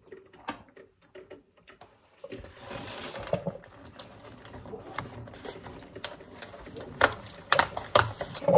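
Light clicks and taps of fingers handling a cardboard advent calendar box on a glass stovetop. A soft continuous rustle joins about two seconds in, with a few sharper taps near the end.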